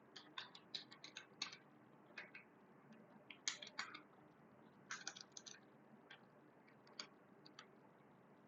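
Faint computer keyboard keystrokes: a few short bursts of quick taps with pauses between them, typical of entering a username and password.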